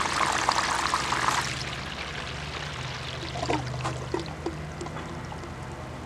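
Water rushing down a sluice box cuts back about a second and a half in as its battery-powered pump is switched off, leaving the water draining off the riffles with a few trickles and drips. A low steady hum runs underneath.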